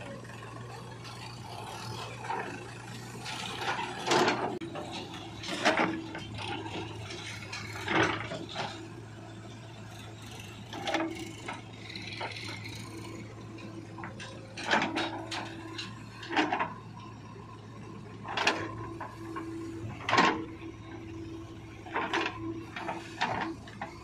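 A JCB 3DX backhoe loader's diesel engine running steadily while its backhoe bucket digs into dry, lumpy soil. The bucket and arm give repeated clanks and scraping knocks at irregular intervals.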